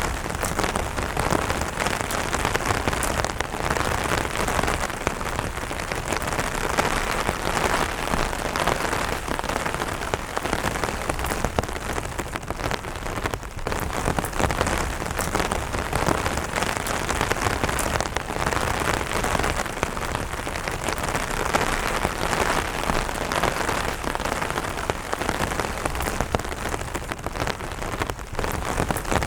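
Steady light rain falling on an umbrella canopy, a dense, even run of small drop impacts.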